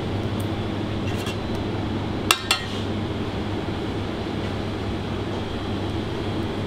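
Steady hum of kitchen ventilation, with two quick clinks of a utensil against crockery or a pan about two seconds in, a fifth of a second apart.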